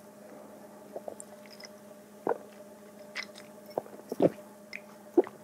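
Beer being gulped down from glasses: a handful of soft swallowing sounds spaced about a second apart, over a faint steady hum.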